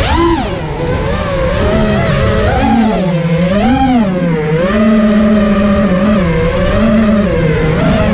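FPV racing quadcopter's motors and propellers buzzing, heard from its onboard camera, the pitch rising and falling with each change of throttle.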